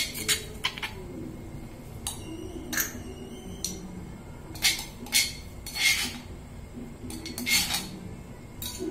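A spoon scraping and knocking against a stone mortar and a small bowl as pounded garlic, pepper and coriander-root paste is spooned out: a scattered series of about nine sharp clinks and knocks.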